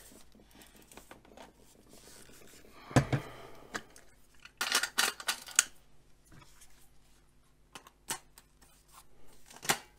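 Camera gear being handled as an extension tube and macro lens are fitted to the camera's bayonet mount. A sharp knock comes about three seconds in, a quick cluster of clicks follows around five seconds, and there are single clicks near the end.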